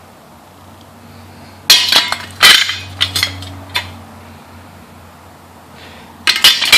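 Steel riding-mower blades clanking as they are handled: a cluster of sharp metallic clinks from about two to four seconds in, and another burst near the end.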